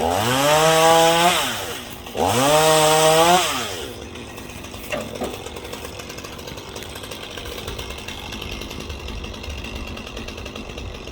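Chainsaw revved up twice in quick succession, each rev rising in pitch, held about a second and a half, then falling away, before the saw drops back to a low idle.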